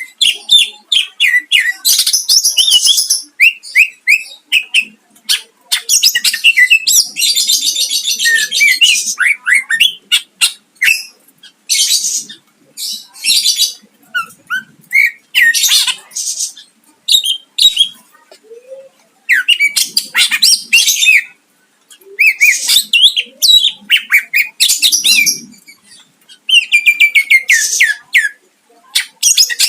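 A cucak ijo (leafbird) singing loudly in long bursts of fast trills and harsh rapid notes mixed with mimicked phrases of other birds, broken by short pauses. This is a caged songbird in full song, with plenty of imitations.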